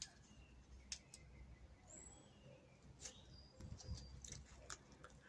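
Near silence: faint scattered clicks and a few short, faint high chirps.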